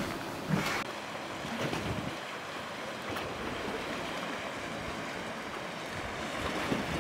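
A short knock under a second in, then Lake Superior waves washing steadily against a rocky shoreline, with wind.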